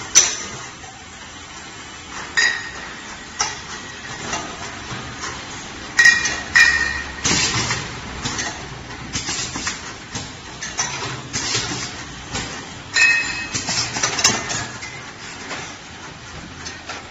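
Automatic round-bottle labeling machine running, with bottles clinking and knocking against each other and the machine at irregular intervals, roughly once or twice a second. Some clinks ring on briefly.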